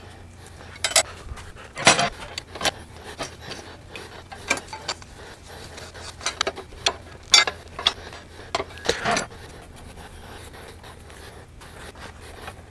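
Hand tools working the bolts of a steel cargo rack on a Yamaha TW200's triple clamps: irregular metal clinks and short scrapes as the bottom bolts are put back in and snugged. The clinks die away about nine seconds in.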